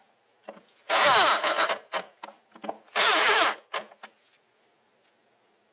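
Two loud strokes of a tool scraping on wood, the first about a second in and the second about three seconds in, each under a second long, with a few short, lighter scrapes around them.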